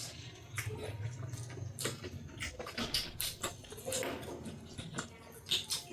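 Close-up eating sounds of people eating millet dhido and curry: irregular wet smacks, chews and small clicks.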